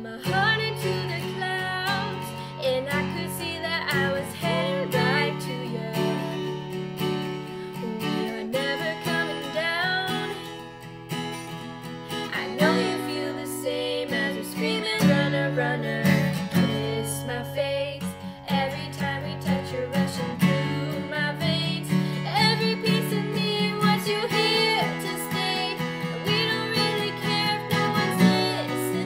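Acoustic guitar strummed in changing chords, with a woman's voice singing over it.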